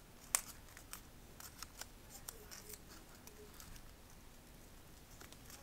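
Sheets of folded origami paper being creased and fitted together by hand: a scatter of light, crisp paper clicks and rustles, the loudest about a third of a second in.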